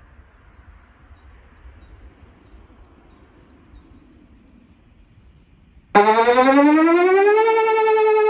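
Whelen WPS 2809 electronic warning siren starting up during its annual test, about six seconds in. The rich, many-toned sound cuts in suddenly, slides up in pitch for about a second and a half, then holds a steady high pitch. Before it there is only a faint low background rumble with a few tiny ticks.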